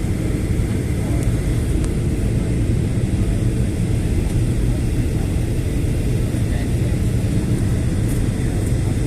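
Steady low rumble of a passenger airliner's cabin noise, engines and airflow, as the plane descends through cloud toward landing.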